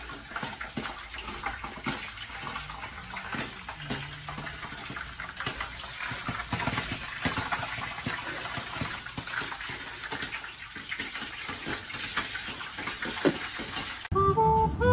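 Running water, a steady rushing noise with irregular crackles, that cuts off abruptly just before the end as music comes in.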